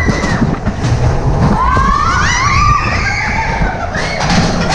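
Roller coaster car rumbling along its track, with riders screaming in rising and falling cries about halfway through.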